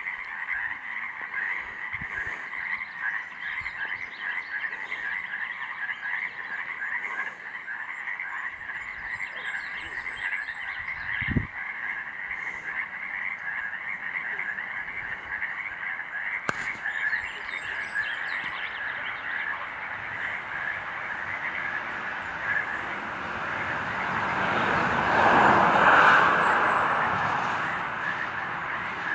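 A dense chorus of frogs or toads, many rapid overlapping croaking calls, which the uploader suggests may be Yosemite toads. Near the end a broad rushing sound swells up and fades away over the chorus.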